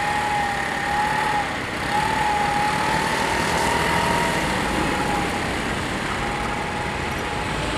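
Small engines of motor scooters running and pulling away as a level crossing's barriers rise, under a steady high tone and a wavering whine that breaks off twice.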